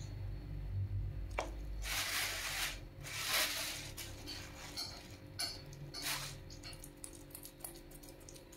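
A metal spoon scraping and clinking in a metal pan of water as raw beef meatball paste is scooped and dropped in, with wet squishing. There is a sharp click about a second and a half in, followed by a few short scrapes and splashes, the loudest two to three seconds in.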